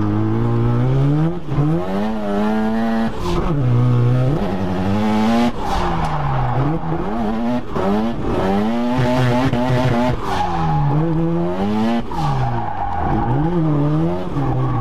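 Turbocharged 13B rotary engine of a Mazda RX-7 FC3S, heard from inside the cabin while drifting: the revs rise and fall over and over as the driver works the throttle, with tyres squealing.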